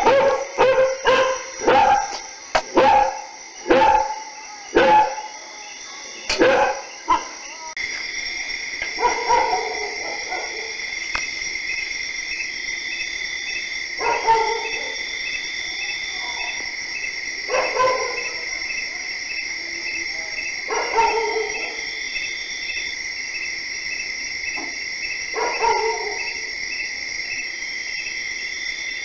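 Dog barking: a quick run of short barks for about seven seconds, then, against steady insect chirping, single barks every three to four seconds.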